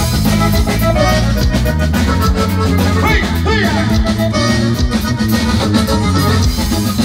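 Norteño band playing an instrumental passage live, with button accordion carrying the melody over guitar, electric bass and drums in a steady zapateado rhythm.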